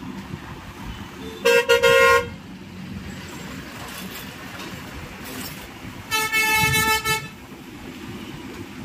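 Vehicle horn honking twice: a few quick toots about a second and a half in, then one steady honk of about a second near six seconds in, over a low hum of traffic.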